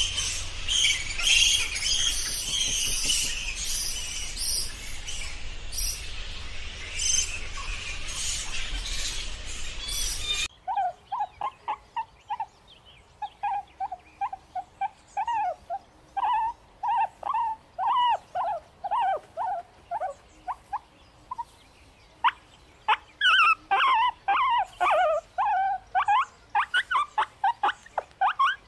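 Flying foxes at their roost, a dense chatter of shrill high calls over a low rumble, which cuts off suddenly about ten seconds in. Then wild boar piglets squeal in short, rapid squeaky calls, sparse at first and crowding together over the last several seconds.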